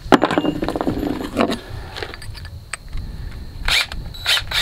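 Metallic clicking and rattling as a new drill bit is handled and fitted into a DeWalt cordless drill's keyless chuck, with a few short rasping bursts near the end.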